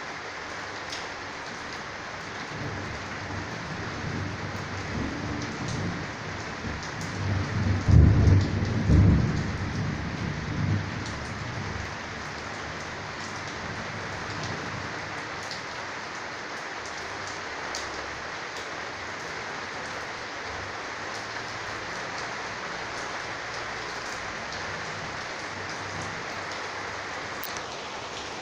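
Steady heavy rain hissing on a corrugated roof, with scattered sharp drop ticks. A long roll of thunder builds a few seconds in, is loudest about a third of the way through, and dies away.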